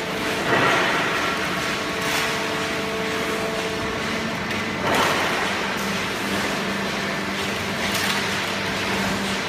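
Hydraulic horizontal cardboard baling press running: a steady machine hum with a few held tones that shift partway through, and a brief swell of noise every few seconds.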